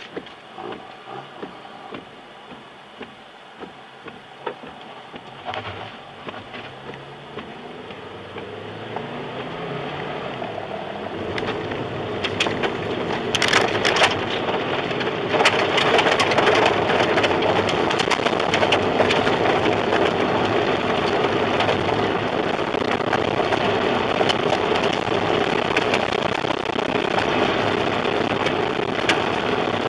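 Inside a car being overtaken by a tornado: the engine note rises as the car speeds up, under scattered sharp ticks of rain and debris hitting the body. From about twelve seconds in a loud roar of wind and rain swallows the car, with a dense clatter of cracking impacts of debris and rain on the bodywork and glass.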